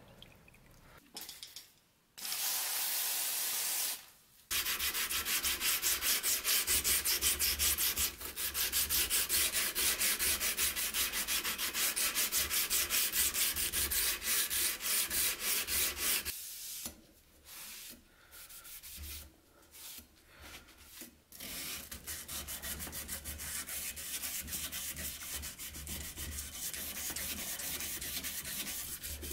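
Steel knife blade being sanded with abrasives, in fast, even rubbing strokes, after a brief hiss about two seconds in. A low motor hum runs under the sanding in the first half; the sanding breaks off for a few seconds past the middle, then resumes as steadier hand-sanding strokes.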